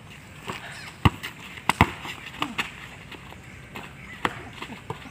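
Basketball bouncing on a hard dirt court: a few sharp, irregular thuds, the loudest about a second in and just before two seconds, with lighter knocks later.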